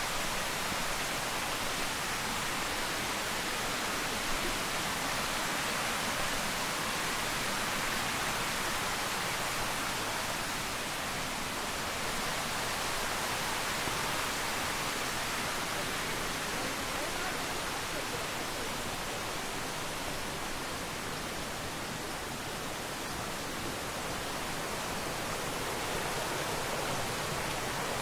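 Steady, even rushing outdoor noise with no distinct events, strongest in the mid-to-high range.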